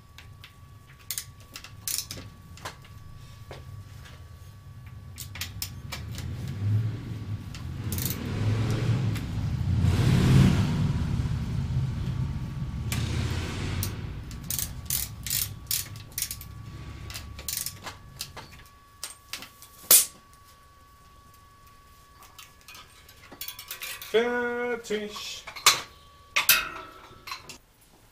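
Hands-on work on a bicycle's rear wheel in a repair stand: scattered clicks and the ratcheting of the rear hub's freewheel. A low rumble swells and fades in the middle.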